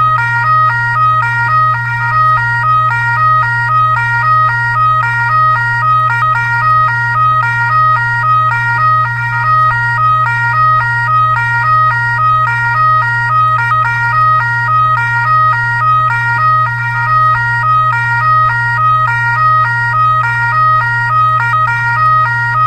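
Fire truck siren sounding a two-tone high-low pattern, stepping back and forth between two pitches in a steady repeating rhythm, over a constant low hum.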